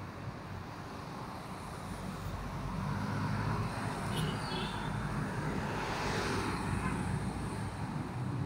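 Motor traffic: a steady low engine hum that grows louder about three seconds in, as a vehicle passes loudest around six seconds in. A brief high squeak sounds about four seconds in.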